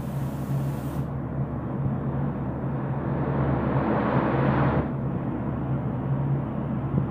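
Paint spray gun hissing in one pass that swells and cuts off suddenly about five seconds in, over a steady low machine hum.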